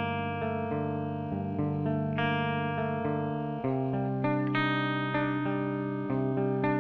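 Music: a clean-toned guitar picking single ringing notes one after another, each left to ring and fade, with no drums.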